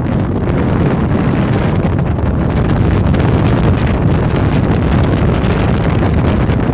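Storm-force wind blasting across the microphone: loud, continuous wind noise, heaviest in the low rumble, swelling slightly about a second in.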